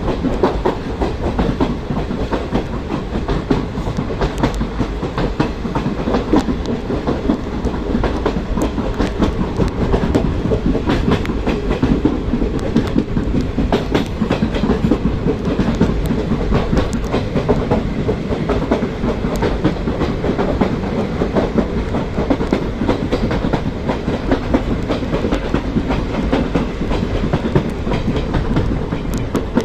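Passenger train coaches running along the track, wheels clattering over rail joints above a steady rumble, heard from aboard the train.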